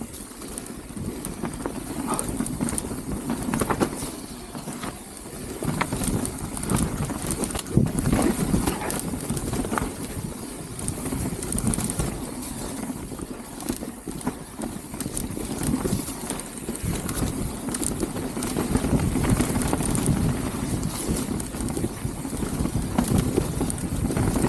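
Mountain bike rolling fast down a muddy dirt trail: tyres on mud and roots, with the frame and chain rattling and knocking over bumps throughout, and wind buffeting the action camera's microphone.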